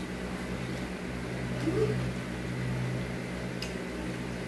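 Steady low hum in a quiet room, with a brief soft murmur a little under two seconds in and a faint click near the end.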